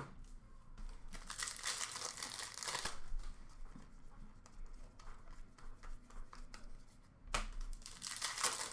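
Upper Deck hockey card pack wrappers being torn open and crinkled, in two bursts: one starting about a second in, the other near the end. Fainter rustling and light clicks of cards being handled come between them.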